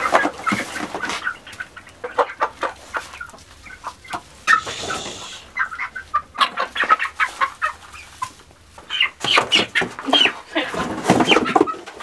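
Chickens clucking in many quick, short calls, with a brief rustle about halfway through.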